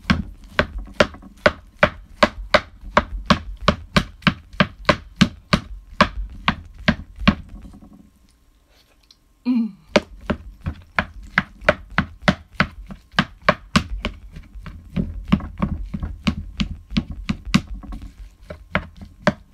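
Rice paddle cutting and turning freshly cooked rice in a frying pan to mix in the sushi vinegar, striking about three times a second, with a pause of about a second and a half near the middle.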